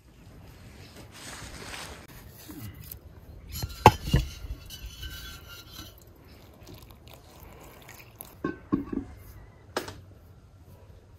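Kitchenware being handled while dough is prepared: an enamel bowl knocking and clinking, with sharp knocks about four seconds in and again a few times near the end.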